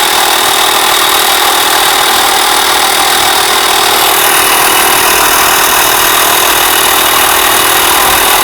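Portable tyre-inflator air compressor running steadily as it pumps up a motorcycle tyre that is still at very low pressure.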